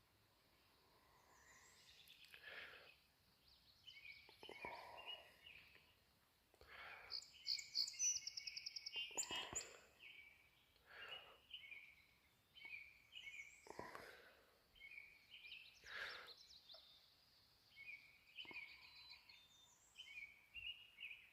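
Faint birdsong: a songbird repeating short high phrases and trills every second or two, over soft outdoor background noise.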